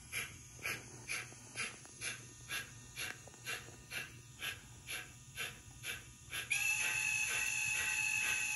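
DCC sound decoder in a model Adams 415 radial tank locomotive playing steady steam exhaust chuffs, about two a second, through the model's speaker. About six and a half seconds in, a steady steam whistle of several tones starts and holds.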